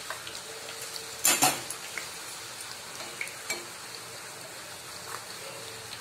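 Maida puri deep-frying in hot oil, a steady low sizzle with small crackles. A metal spatula clatters loudly against the pan about a second in and clicks once more past the middle.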